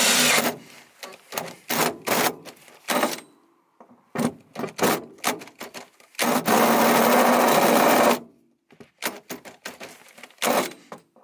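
Cordless drill with a hole saw cutting through the van's steel floor, run in short stop-start bursts, with a longer run at the start and another about six seconds in.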